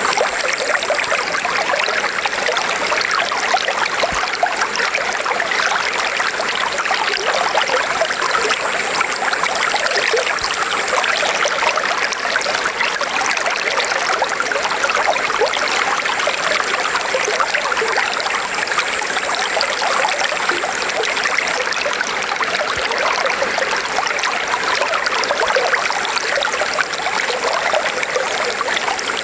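River water flowing over rocks, a steady rushing and babbling that stays even throughout.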